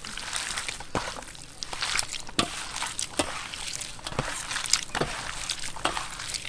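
Raw sliced pork being mixed by hand with seasoning on a metal tray: wet squelching and sloshing, broken by irregular sharp slaps and taps, several a second at times.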